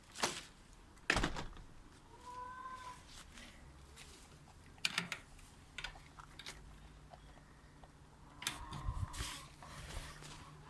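Scattered sharp knocks and scuffs, with a brief hen call about two seconds in and a cluster of knocks near the end.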